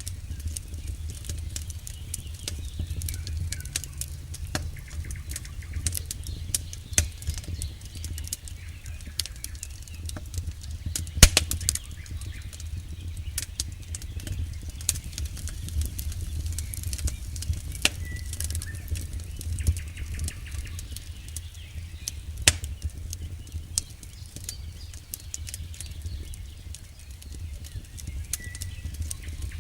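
Wood campfire crackling with many sharp pops over a steady low rumble. The loudest pops come about eleven seconds in and again about twenty-two seconds in.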